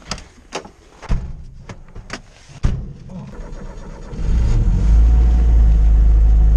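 A few clicks, then a Lada Zhiguli's engine starts about a second in and runs with a low rumble. From about four seconds in it gets much louder and deeper and holds steady.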